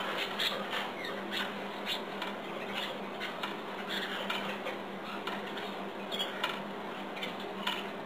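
Caged canaries chirping and twittering in many short, high calls, over a low steady hum.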